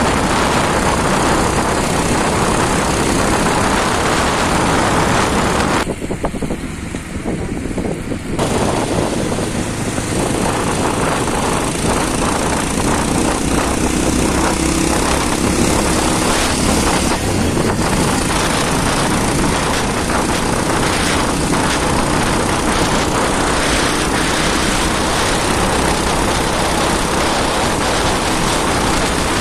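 Bajaj Pulsar 220F's single-cylinder engine running under way, mixed with heavy wind rush over the microphone. The wind noise eases for about two seconds, around a fifth of the way in.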